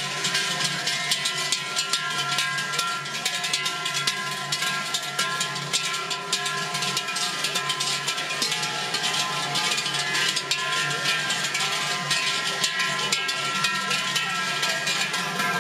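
Many large bells worn on the belts of Glöckler runners ringing together as the group jogs past: a steady, dense jangle with several bell tones held throughout.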